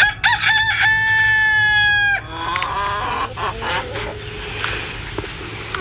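A rooster crowing once, a cock-a-doodle-doo of short rising notes ending in one long held note that cuts off abruptly about two seconds in.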